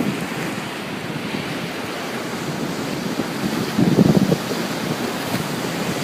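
Ocean surf washing steadily onto a beach, a continuous rush of breaking water, with wind buffeting the microphone in a stronger low gust about four seconds in.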